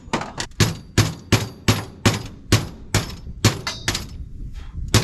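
Repeated hammer blows on steel, about two to three a second with a short pause near the end, driving out a stuck part on a baler. One blow rings on briefly.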